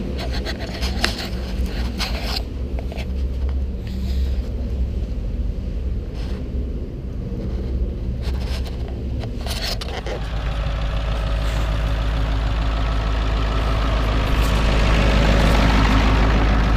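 Footsteps and scattered knocks over a low rumble for about ten seconds. Then a welding truck's engine runs steadily at idle and grows louder toward the end.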